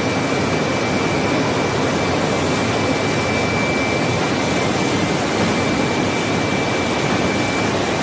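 A circular-saw sawmill line running: multi-saw machines and roller conveyors make a loud, steady roar with a thin, steady high whine through it.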